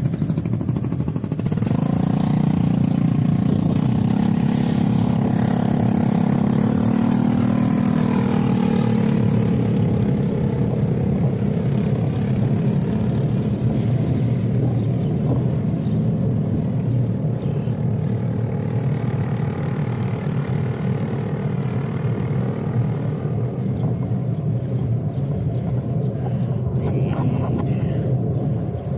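Wind buffeting a camera microphone on a moving bicycle: a steady, loud low rumble. For the first ten seconds or so a motor vehicle's engine runs close by, its pitch rising a little.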